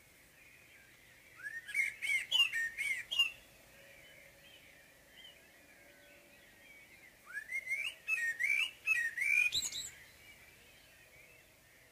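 Common blackbird singing its morning song: two phrases, each of low fluty warbled notes ending in a high squeaky twitter. Other birds sing faintly and continuously in the background.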